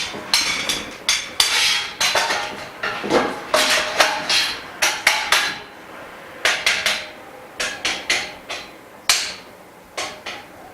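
Frame bars of a dust-free room's frame being fitted and knocked together during assembly: a quick, uneven run of sharp knocks, each with a short ring, with a brief pause about six seconds in.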